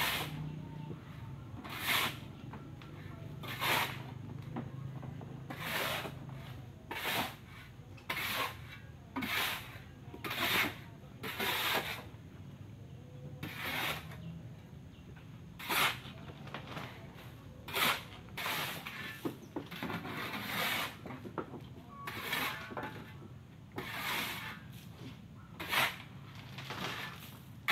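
Shovel scraping into crushed stone on a pickup truck's bed and flinging it down onto a pile, one gritty scrape every second or two.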